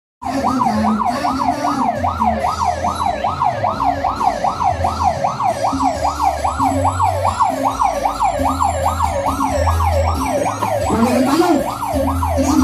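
Electronic siren yelping, its pitch rising and falling fast, about three times a second without a break, over a low rumble that comes and goes.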